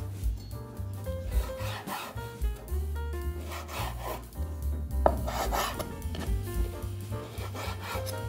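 Chef's knife slicing through bacon rashers and striking a wooden cutting board, a run of irregular strokes with one sharp knock about five seconds in, over background music.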